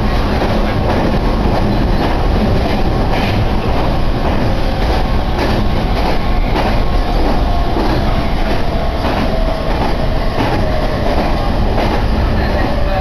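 Commuter electric train running, heard from inside the car: a steady rumble with wheels clicking now and then over rail joints. A faint whine falls slowly in pitch over the second half.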